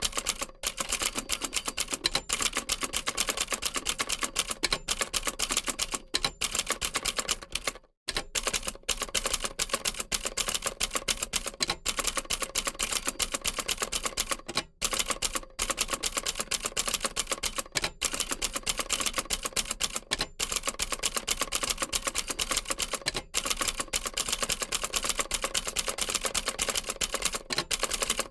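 Old manual typewriter being typed on quickly and continuously: a rapid run of key strikes with brief pauses now and then, such as a little after 8 seconds and around 15 seconds.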